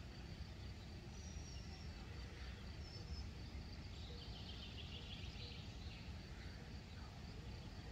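Faint outdoor ambience: a steady low rumble with a few faint, short, high bird calls, and a brief patch of chirping about five seconds in.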